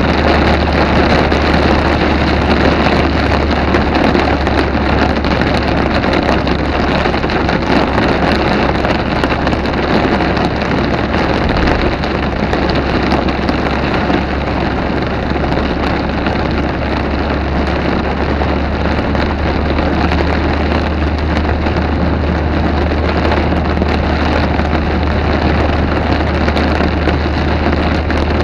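Heavy rain falling steadily in a thunderstorm: a dense, even hiss with a constant low rumble underneath.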